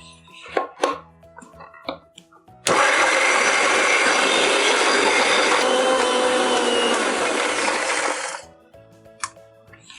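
Indian mixer grinder (mixie) running for about five and a half seconds, coarsely grinding chopped amla pieces in its jar; it starts suddenly a few seconds in and winds down near the end. A few light clinks come before it.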